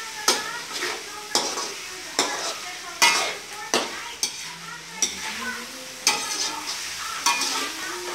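A metal spoon scraping and knocking against a metal wok while ground beef and mushrooms are stirred, sizzling in the pan, with a sharp scrape about once a second.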